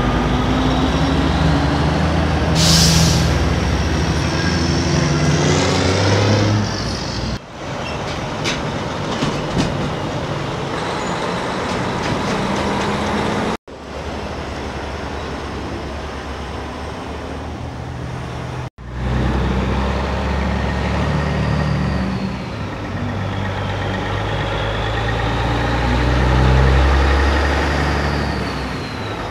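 Big diesel trucks, including Peterbilt semis, drive past one after another with their engines pulling and stepping up in pitch as they shift gears. There is a short air hiss about three seconds in. The sound cuts abruptly between separate passes three times.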